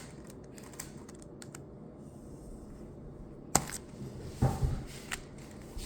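A few scattered light plastic clicks and a sharper knock or two from a Rubik's cube being handled and turned.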